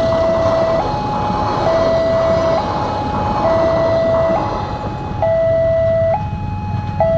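Railway level-crossing warning siren sounding a two-tone hi-lo alternation, each tone held just under a second, over a low steady rumble. It warns that a train is approaching and the crossing gates are closing.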